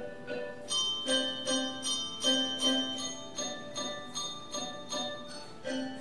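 Middle-school handbell choir playing a piece: handbells struck in a steady rhythm of about two to three strokes a second, the chords ringing on between strokes.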